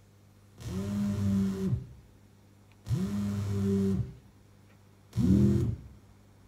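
Opened-up cassette player whose tape motor is run by DC control voltage from a modular synthesizer, playing a low pitched tone three times. Each note bends up in pitch as the tape gets going and sags as it stops; the third note is shorter and louder.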